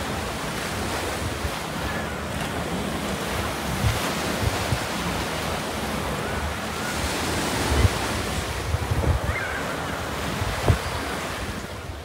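Steady wash of ocean surf, with wind buffeting the microphone in a few low bumps.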